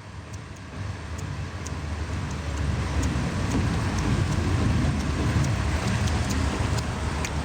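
Road traffic rumble that builds over the first few seconds and then holds steady, with faint, regular ticking above it.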